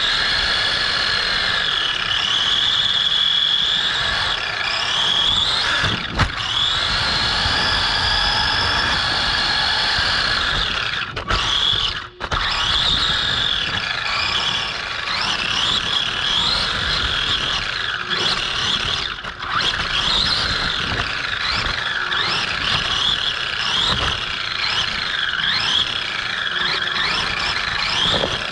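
Electric RC buggy (Redcat Cyclone XB10) heard from on board while driving on a carpet track: the electric motor and gear drive whine, rising and falling over and over with the throttle, over a steady hiss of tyres on carpet. The sound dips sharply for a moment about twelve seconds in.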